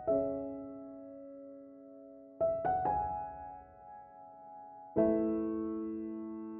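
Background music: soft piano chords struck a few at a time, each ringing out and fading, with new chords about two and a half seconds in and again at about five seconds.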